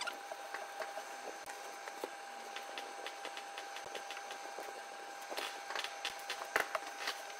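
Gloved hands working over a slate clock case: scattered small clicks and knocks with some rubbing, busiest about two-thirds of the way through, over a steady faint hum.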